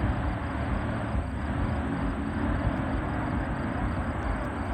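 Racing hydroplane boats' engines running hard at speed, a steady continuous drone with a mix of low engine tones and spray and wind noise.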